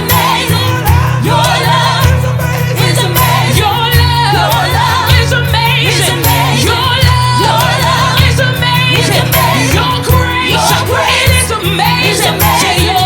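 Live gospel music: a full band with heavy bass and steady drums under group singing.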